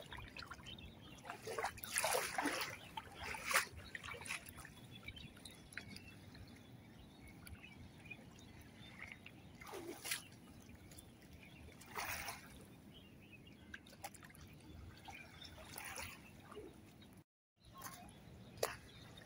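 Shallow sea water splashing and sloshing against the stones of a pebbly shoreline, in a handful of short splashes over a quiet steady wash.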